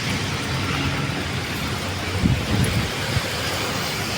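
Road traffic: a steady rush of cars and other vehicles passing, swelling louder a little over two seconds in, with a short knock about a second later.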